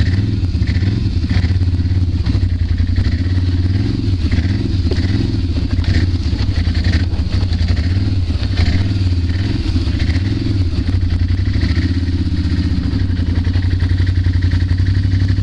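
ATV engine running steadily as the quad rides along a rough forest trail, heard up close from on board.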